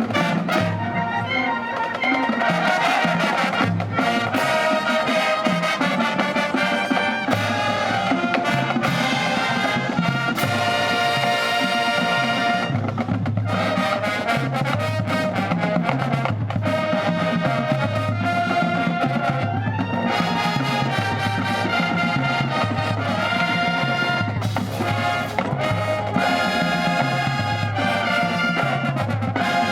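High school marching band playing: brass carrying sustained chords and melody over a bass line that steps along in a steady beat.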